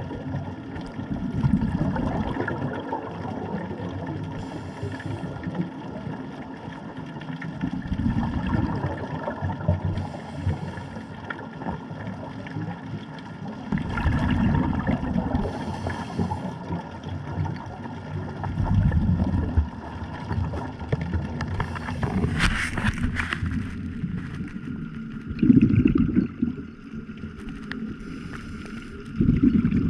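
Muffled underwater sound through a camera housing: low bubbling surges that swell about every five or six seconds, over a faint steady hum. There is a brief sharp crackle about two-thirds of the way through.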